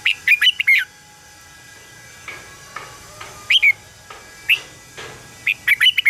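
Red-whiskered bulbul singing: short, quick phrases of sweeping whistled notes, a cluster at the start, two single phrases in the middle and another cluster near the end.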